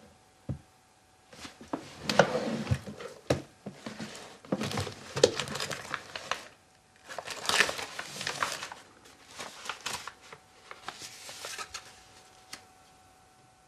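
Rustling and crinkling as belongings are rummaged through by hand in a small room. It comes in irregular bursts with a few sharp knocks and grows quieter near the end.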